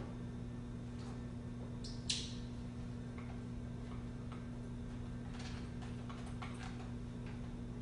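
Clear plastic packaging crinkling and clicking as it is handled and opened: scattered short crackles, the sharpest about two seconds in and a cluster near the end, over a low steady hum.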